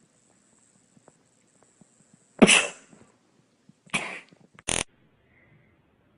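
Three short cough- or sneeze-like bursts of breath. The first, about two and a half seconds in, is the loudest; the last, near five seconds in, is short and sharp.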